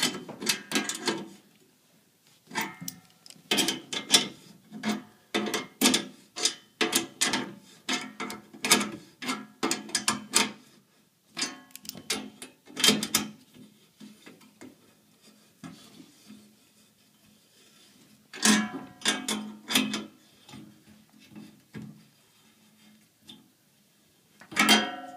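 Adjustable wrench tightening nuts on the carriage bolts of a steel mounting bracket: repeated metal clinks and scrapes of the wrench jaws on the nuts and washers, in clusters with short pauses between.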